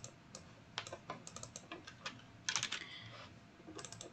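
Faint, scattered clicks of a computer keyboard and mouse, with a quick run of keystrokes about two and a half seconds in.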